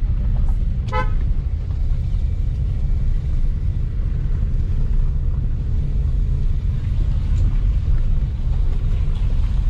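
Steady low rumble of a car driving along a rough road, heard inside the cabin, with one short car-horn toot about a second in.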